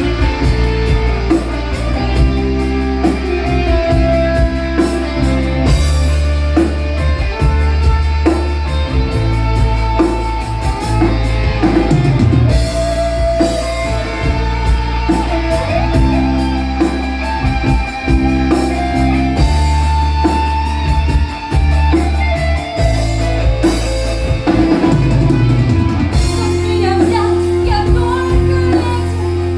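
Rock band playing live: drum kit, bass and guitars under a melodic lead line of long held notes.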